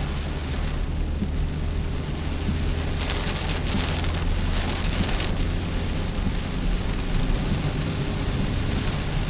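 Inside a car driving in the rain: a steady low engine and road drone under the hiss of rain and tyre spray, with a louder rush of hiss from about three to five seconds in.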